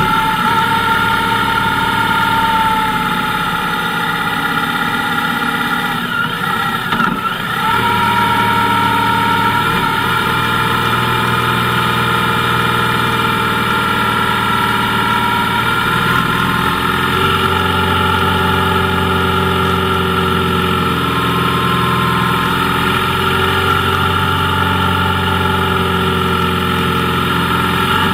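Motorcycle engine running steadily while riding. Its pitch sags and picks up again about seven seconds in.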